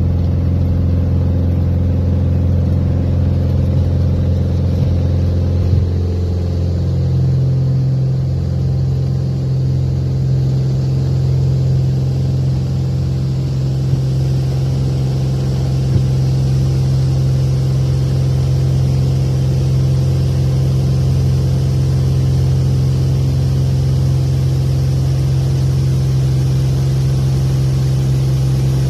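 Navion's single piston engine and propeller running at takeoff power, heard from inside the cockpit. The steady drone steps up in pitch about seven seconds in, then holds through the climb-out.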